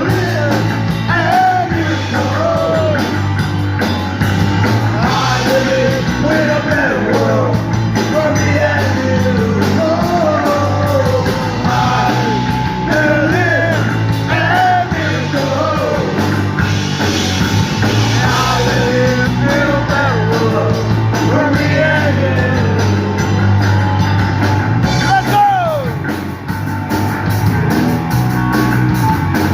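Rock band playing a punk-rock song with a lead vocal over bass, guitar and drums. The singing thins out near the end while the band keeps playing.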